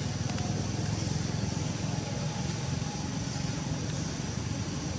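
Steady low rumble with an even hiss above it.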